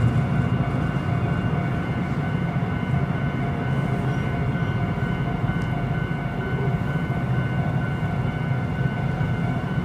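Japanese railway level-crossing alarm ringing its steady, repeating electronic bell while the crossing is closed, over a low, steady rumble.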